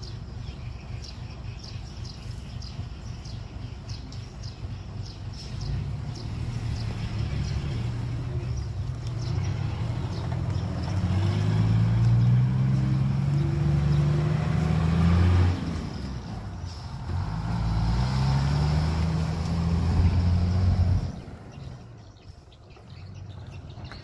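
Dump truck's diesel engine pulling away under load, its note climbing steadily, dipping briefly about fifteen seconds in, then climbing again before dying away near the end.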